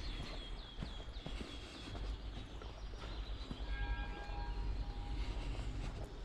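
Footsteps of a person walking outdoors over uneven ground, soft scattered steps. A bird chirps a quick run of short falling notes in the first second or two, and a faint steady tone is held for about a second near the middle.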